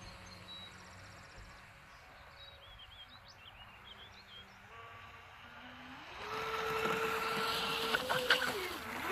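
Electric RC jet boat running fast on a 6S LiPo, faint at first as it crosses far out. About six seconds in its motor whine rises in pitch and grows louder over the hiss of spray as it comes close, then dips and climbs again near the end. A bird chirps briefly a few times early on.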